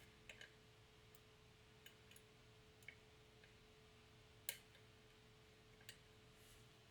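Faint, scattered clicks of lock picks working the pins of a challenge lock, about half a dozen over several seconds, the sharpest about four and a half seconds in, over a faint steady hum.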